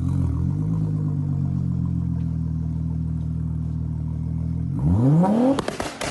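Car engine idling steadily, then revving up quickly near the end into a two-step launch limiter, which sets off a rapid string of sharp pops and bangs.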